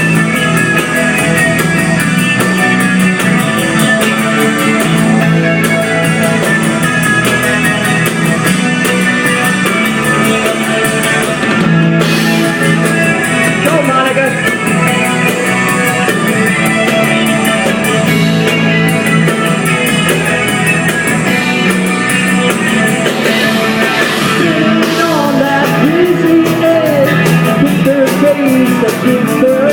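Live rock band playing an instrumental stretch: electric guitar, bass and drum kit, at an even, loud level, with a gliding melodic line rising out of it in the last few seconds.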